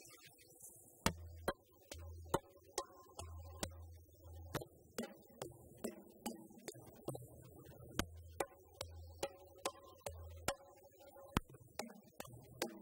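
A large group playing djembe-style hand drums together in an ongoing rhythm: sharp slaps over repeated deep bass tones.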